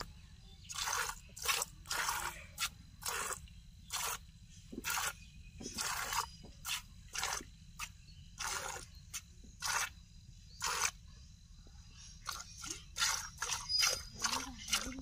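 Milk squirting from a cow's teats into a plastic bucket during hand milking: short hissing squirts, about two a second in a steady rhythm.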